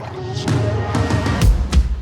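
Background music with heavy low drum hits near the end.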